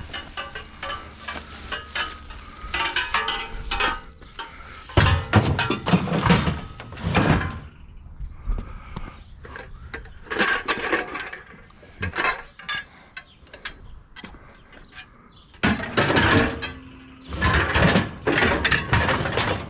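Scrap metal clanking and rattling as pieces are handled and tossed about, in several bursts of knocks and clatter.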